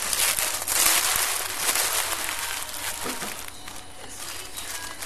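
Paper being crumpled and crinkled by hand. It is a dense crackle, loudest in the first two seconds, that fades after about three seconds.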